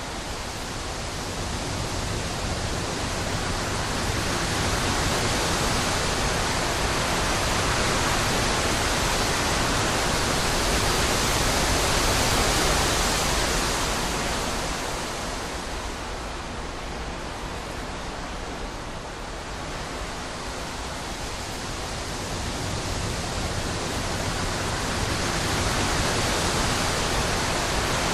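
Wind blowing in gusts: a broad rushing noise that swells to a peak about twelve seconds in, eases off for several seconds, then builds again near the end.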